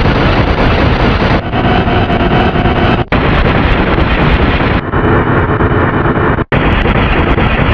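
Loud, harsh, heavily distorted effects-processed audio: a dense noisy wash with no clear voice or tune. It changes abruptly in tone every second and a half or so, with two very brief dropouts.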